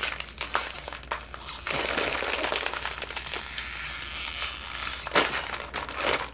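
Crinkly plastic snack bag crackling as it is handled, with many small crackles and one sharp crack about five seconds in.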